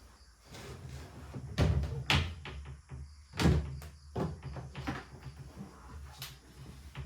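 Several irregular knocks and thumps, like things being set down or a lid being handled, with the loudest ones about one and a half, two and three and a half seconds in.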